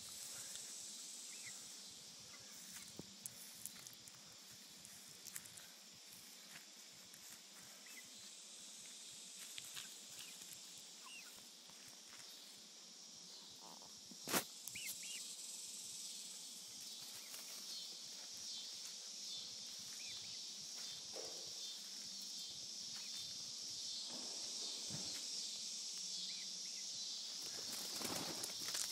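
Steady high-pitched buzz of insects in summer grass, growing a little louder in the second half, with soft rustling and scattered small clicks. One sharp click stands out about halfway through.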